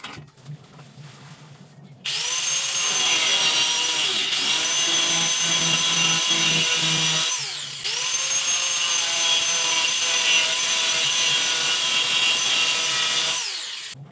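Handheld electric angle grinder spinning up to a high, steady whine while cutting plastic pipe. It winds down briefly about halfway, starts again, and winds down near the end.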